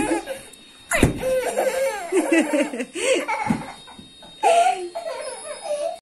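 Toddler laughing in several short bursts of giggles, with a single thump about a second in.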